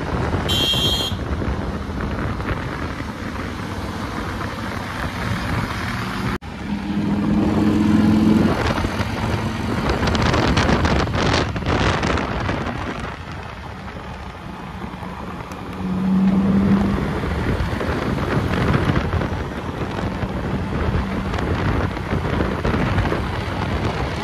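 Road noise from riding in city traffic, heavy wind rush on the microphone over passing engines and tyres. A steady horn-like tone sounds briefly twice, about seven and sixteen seconds in.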